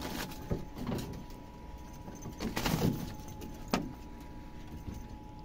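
Scattered soft knocks and rustles from a dog moving about on a bamboo slat floor around a crumpled paper bag, the biggest cluster about halfway through and a sharp click a little later, over a faint steady hum.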